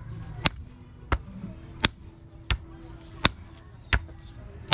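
Hand hammer striking a steel rod laid on the head of another hammer used as an anvil, metal on metal. About seven sharp, evenly paced blows, roughly two-thirds of a second apart.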